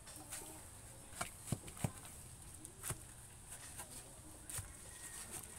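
Steel shovel blade striking and scraping into a pile of wet sand-and-cement mix while hand-mixing mortar: several sharp, irregular strikes.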